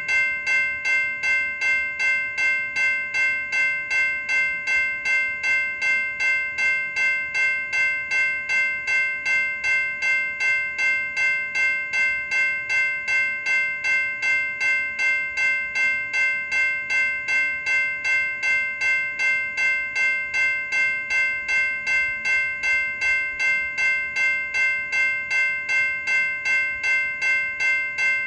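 General Signals Type 2 electronic railroad crossing bell ringing steadily: the same chime of several tones struck over and over, about twice a second, without a pause.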